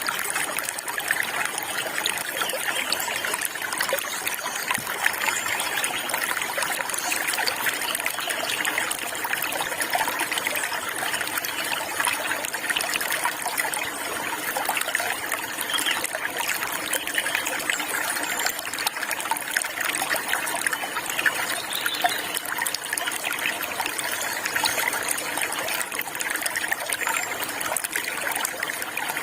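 Water flowing and trickling steadily over stones, a continuous even splashing with no pauses.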